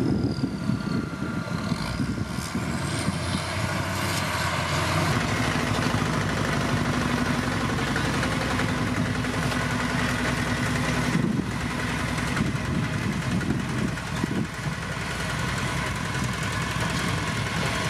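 Heavy diesel road-building machinery running steadily: a motor grader working over broken stone, then, after a change about five seconds in, a single-drum road roller rolling over the stone with its engine humming steadily.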